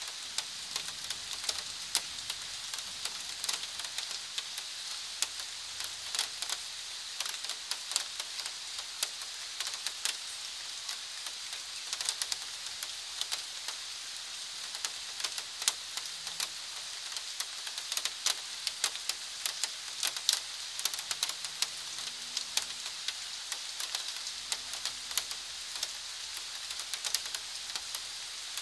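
Steady rain falling: an even hiss, with many close drops ticking sharply and irregularly on nearby surfaces.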